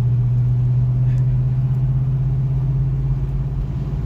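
1972 Chevrolet Nova running steadily: one deep, even hum with a low rumble beneath it.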